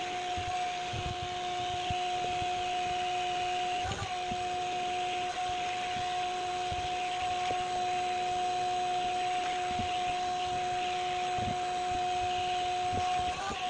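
Vacuum cleaner running steadily with a constant whine, its hose held up to the ceiling to pull away drywall dust. Under it, a hand sanding block scrapes over the dried joint-compound patch.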